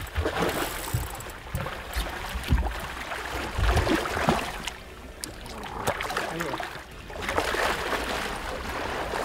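A big hooked cubera snapper splashing and thrashing at the water's surface beside the boat as it is hauled in, with a few low thumps in the first few seconds.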